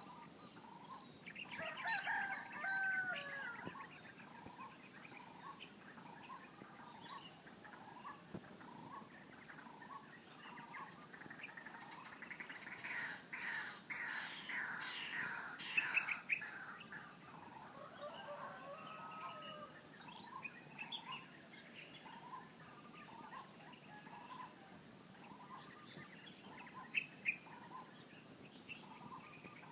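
Roosters crowing: one crow a couple of seconds in and another later on, with a louder run of fowl calls in the middle. Under them a soft chirp repeats steadily, and a high, even insect drone runs throughout.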